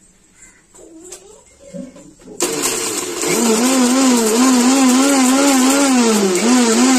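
Preethi electric mixer grinder switched on about two and a half seconds in, its motor running loud as it grinds dried red chillies in a steel jar, the pitch wavering up and down throughout.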